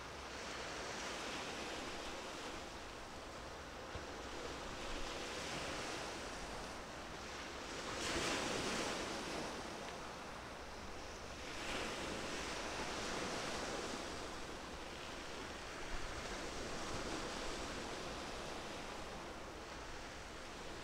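Sea waves washing in, with some wind, the noise swelling and easing; the loudest wash comes about eight seconds in.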